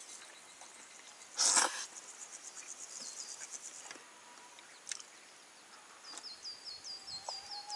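A short, loud slurp of cold somen noodles about a second and a half in, over a faint outdoor background of high, rapid chirping. Near the end, short falling chirps repeat about three times a second.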